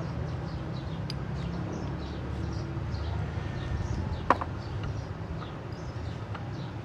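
Small birds chirping again and again over a steady low hum, with one sharp metallic clink a little past four seconds in.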